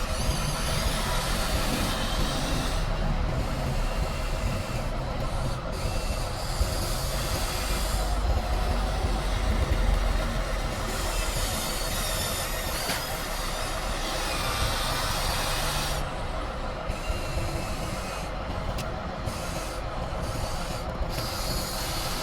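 Electric motors and gearboxes of RC construction models running continuously: a steady mechanical whir with a constant hum under a hiss of noise.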